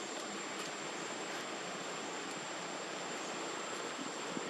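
Steady outdoor background hiss with a thin, high, constant whine on top and a few faint ticks.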